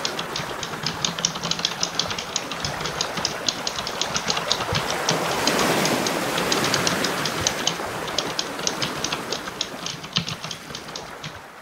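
Computer keyboard typing: rapid, irregular keystroke clicks as an outro sound bed, over a rushing noise that swells around the middle and fades toward the end.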